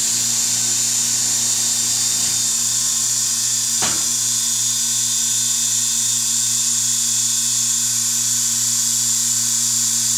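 Vacuum forming machine running: a steady hum with a strong high hiss, and a brief falling sweep about four seconds in.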